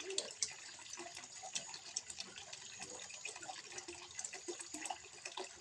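Water trickling and splashing into a small fish pond, a steady patter of many small drops.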